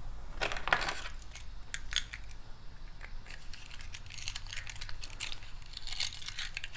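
Light clicks and taps of a BMW remote key fob being handled, its plastic case and metal key parts knocking together, scattered irregularly, with a louder click about two seconds in.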